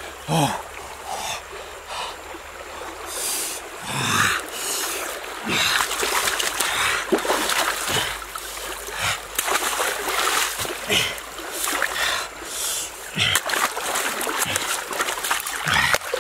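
Fast-flowing stream water rushing steadily, with irregular splashes as a person moves about in the current and dips raw meat into it.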